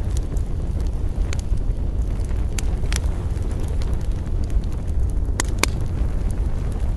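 Campfire burning: a steady low rumble with scattered sharp crackles and pops of the burning wood, two of them close together about five and a half seconds in.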